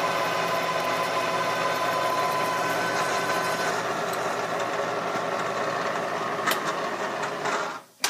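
Bridgeport milling machine running steadily with a whine as a 9/16 in drill bit bores through an aluminum Harley-Davidson Shovelhead cylinder head into the combustion chamber. The machine stops shortly before the end, followed by a sharp click.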